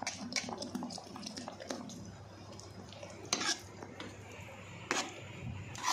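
A spoon stirring thick haleem in a metal pot, scraping and knocking against the pot's sides and bottom, with a few sharper clinks at irregular intervals.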